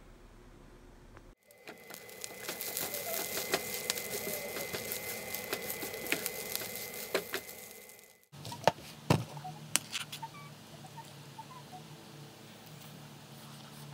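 Gopchang fried rice sizzling and crackling in a non-stick frying pan as it is stirred, with a steady high whine underneath. It cuts off suddenly, and a metal spoon clinks sharply against the pan a few times, followed by softer light taps.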